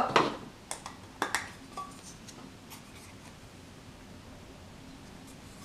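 A small plastic blush compact being handled and opened, with a few light clicks and taps in the first two seconds or so, then faint room tone.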